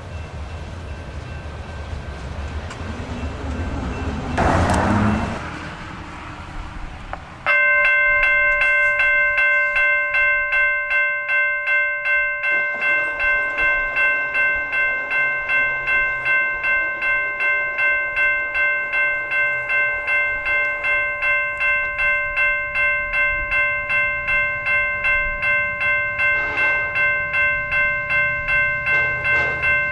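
Freight train cars rolling away with a low rumble, swelling briefly about five seconds in. Then a railroad crossing bell starts ringing, about two strikes a second, steady. A distant train horn sounds briefly near the end.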